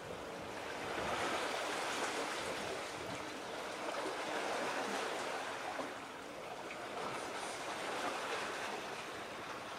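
Water washing at the shore: a steady rushing that swells and eases every few seconds.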